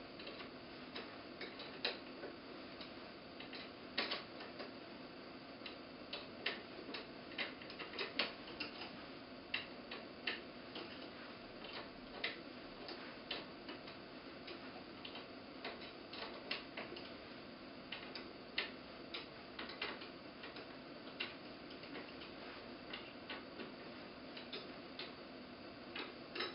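Irregular light metallic clicks and taps from hand tools as a bolt is screwed into a small turbine's metal housing, over a faint steady room hum.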